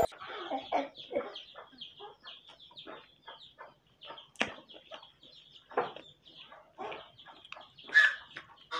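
Close-miked eating sounds: chewing and lip smacks as paratha with cauliflower bhujia is eaten by hand, an irregular run of soft short smacks with a few sharper ones, the loudest near the end.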